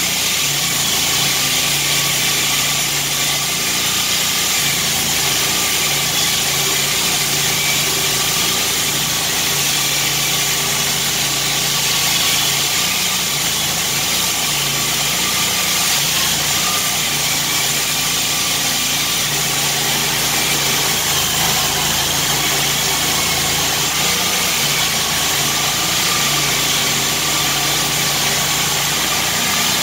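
Core Cut concrete saw running steadily while its diamond blade cuts concrete: a constant engine drone with a slightly wavering whine over a dense grinding hiss.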